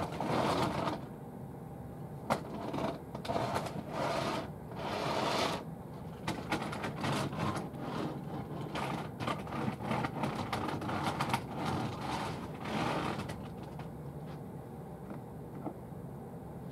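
Irregular clicks, taps and rustles of model railway locomotives and coaches being handled and set onto the track.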